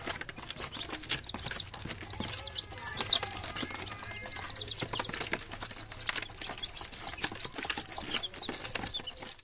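Poultry sounds: short, high chirps come and go over a steady patter of rustling and clicks.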